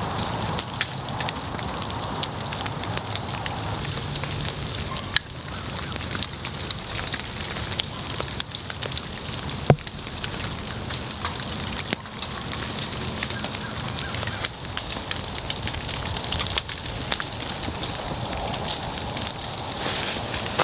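Wood fire crackling steadily, with frequent sharp pops and one louder pop about halfway through.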